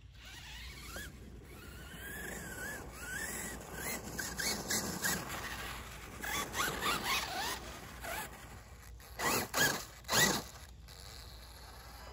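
Losi King Sling electric RC monster truck's motor and drivetrain whining, rising and falling in pitch with the throttle as it slides on dirt, with gritty bursts of tyre noise. Two loud bursts come about a second apart near the end.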